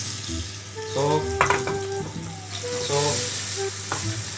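Chopped tomatoes sizzling in hot cooking oil in a frying pan as they are added, with a steady frying hiss.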